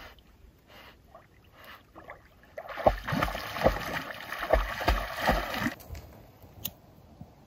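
Canoe paddling: about three seconds of water swishing with five or so low thumps, starting a little over two seconds in.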